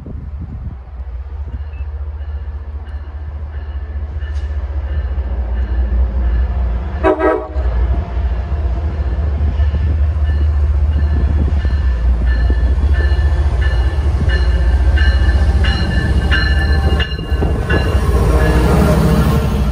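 A train running through, its low rumble growing louder, with a short horn toot about seven seconds in. In the second half come high ringing tones and clatter from the wheels and rails.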